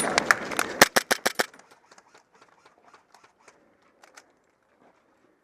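Airsoft gun firing a rapid string of about five sharp shots, just under a second in, followed by faint scattered clicks.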